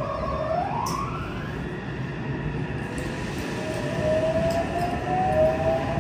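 A 3000S subway train's Mitsubishi IGBT-VVVF inverter and traction motors whining as the train accelerates away from a station, heard inside the car. One tone climbs steeply in pitch in the first second and a half, then a second, lower whine rises slowly, over the rumble of the wheels.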